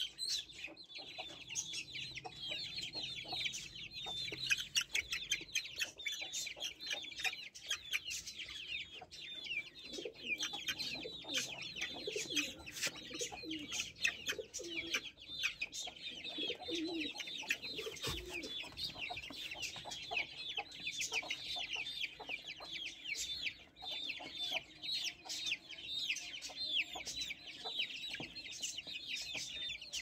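Young chicken chicks peeping continuously, many short high falling peeps a second, with lower clucks from the hen now and then around the middle.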